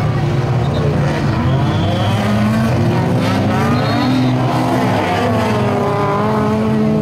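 Several stock-car engines revving at once, each pitch rising and falling, one over another, as the cars accelerate and lift off around the track.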